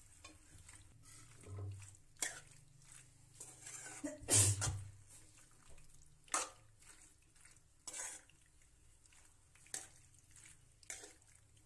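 Metal spoon stirring macaroni in a steel kadai, with irregular scrapes and clinks against the pan, the loudest about four and a half seconds in.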